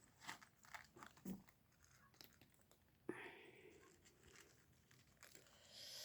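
Faint, scattered clicks and light crunching, with a soft thump about a second in and a brief rustle about three seconds in.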